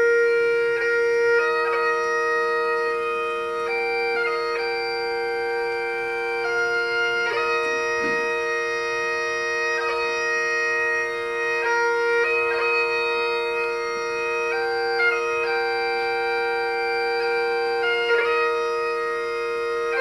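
Bagpipe music: a held drone underneath a chanter melody whose notes change sharply from one sustained pitch to the next, with no struck-bell decay.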